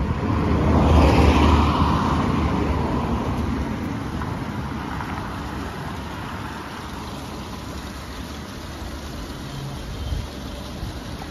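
A vehicle driving past on the street: its tyre and engine noise swells over the first second or two, then fades away over the next few seconds, leaving a steady low background.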